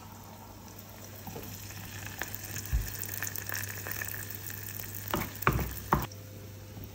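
Egg ravioli in filo pastry frying in hot oil: a steady sizzle that builds over the first couple of seconds. A few sharp knocks come about three seconds in and again near the end.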